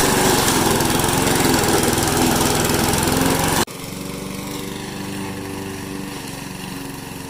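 Lawn mower engine running steadily. About halfway through it drops abruptly to a quieter, steadier running sound.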